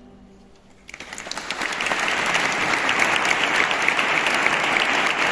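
The last of a choir's final chord fades away, then audience applause breaks out about a second in and quickly builds to steady clapping.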